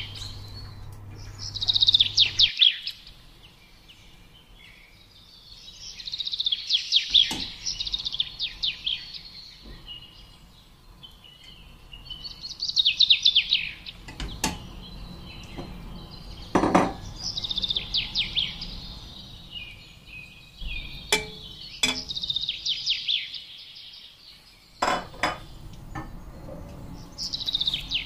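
A small songbird singing short trilled phrases, about one every five seconds. Between the phrases come a few sharp clinks and knocks of utensils against a metal cooking pot.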